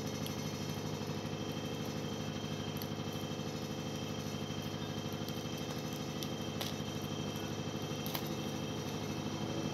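A steady machine-like hum holding several pitches at once, with a few faint clicks of plastic card packaging being handled.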